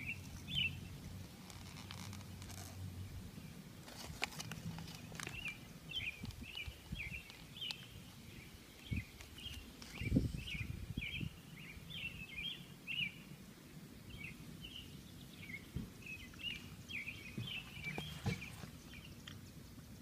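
A bird chirping over and over in short, quick high calls, with a low rumble underneath and a few soft knocks and rustles from handling, the loudest about halfway through.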